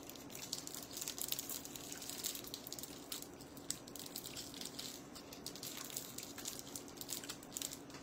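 Plastic candy wrapper crinkling and crackling in a steady run of small clicks as it is peeled back from a Pulparindo tamarind candy by hand, over a faint steady hum.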